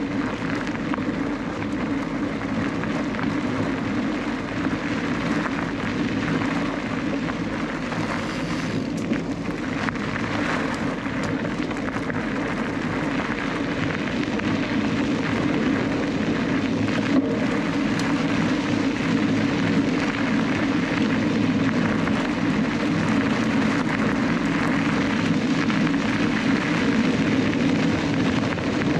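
Mountain bike tyres rolling over a gravel path, a steady rumbling hiss that gets a little louder in the second half.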